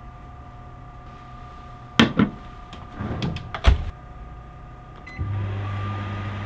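A few knocks as the glass bowl is set in and the microwave oven door is shut, a short beep about five seconds in, then the microwave oven starts running with a steady low hum.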